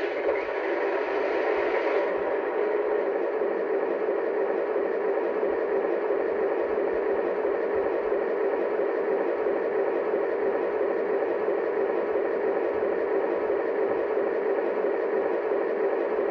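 Lionel Legacy RailSounds diesel sound of a model ALCO PA locomotive starting up, played through the model's own speaker. It is brighter for about the first two seconds, then settles into a steady, even engine rumble at idle.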